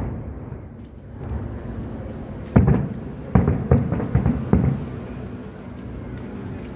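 Aerial firework shells bursting: after a couple of quieter seconds, a quick run of about six sharp booms over two seconds, each trailing off in a low rumble.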